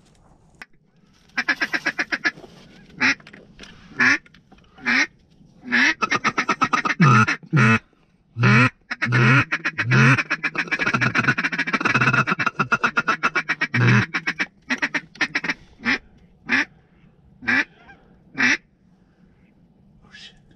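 Duck call blown in a sequence of loud quacks. Single spaced quacks alternate with fast runs of rapid chatter, and the longest, densest stretch lasts several seconds in the middle.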